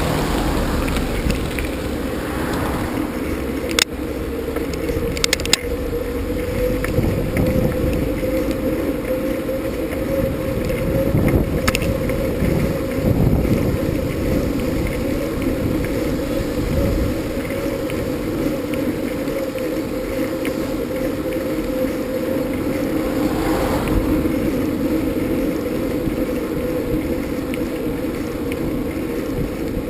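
Steady vehicle running noise in motion: a constant hum with a low rumble, broken by a few sharp clicks about 4, 5 and 12 seconds in.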